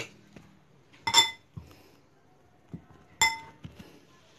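Two ringing clinks of kitchen dishware, about two seconds apart, with a few lighter knocks between, as bowls are handled on the counter.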